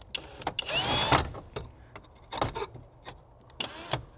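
Cordless drill-driver running a screw into the truck's rusty dash metal in three short bursts, the first and longest spinning up with a rising whine. This is a second attempt after the first screw stripped out.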